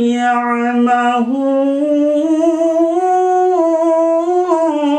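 A man chanting a verse of the Quran in melodic Arabic recitation, drawing one word out into a long held note that climbs in pitch about a second in and falls back near the end.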